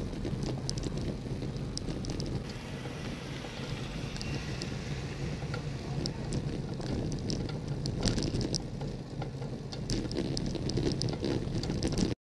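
Wind buffeting and road rumble on a bike-mounted camera's microphone while riding, with scattered light clicks throughout. The sound shifts abruptly about two and a half seconds in.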